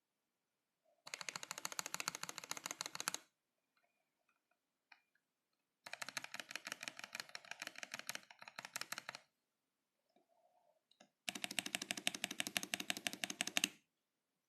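Modata K66 mechanical keyboard with Gateron Yellow linear switches being typed on rapidly. The keystrokes come in three fast bursts of two to three seconds each, with short pauses between them.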